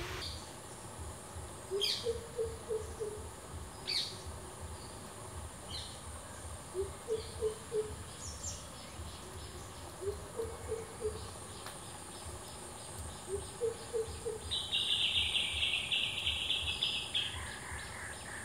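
Birds and insects calling. A low call of a rising note and three or four quick notes repeats four times, about every three to four seconds, with sharp high bird chirps early on. A dense buzzing insect trill comes in near the end, over a steady high insect whine.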